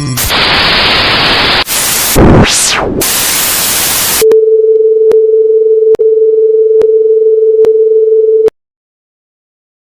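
Loud static hiss in bursts, with a tone that sweeps sharply down and back up about two seconds in. About four seconds in it switches to a steady mid-pitched tone broken by a click roughly every second, which cuts off suddenly into silence.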